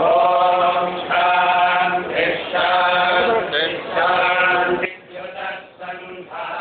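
Male chanting of Vedic mantras in long held notes and short phrases, which falls much quieter about five seconds in.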